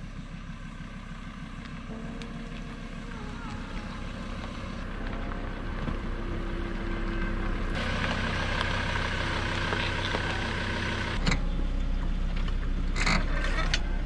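A ute's engine running while towing and reversing a boat trailer: a steady low drone that grows gradually louder, with a few sudden changes in tone.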